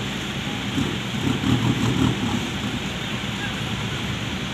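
Steady engine noise on a ferry's vehicle deck as a small pickup truck is edged into place, with voices calling out between about one and two seconds in.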